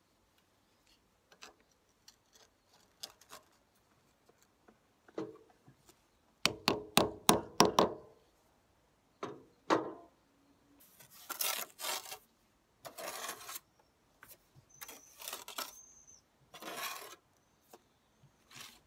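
Bricklaying hand work: scattered clicks, then a quick run of sharp taps about a third of the way through, followed by several short scraping rasps of brick and trowel on mortar.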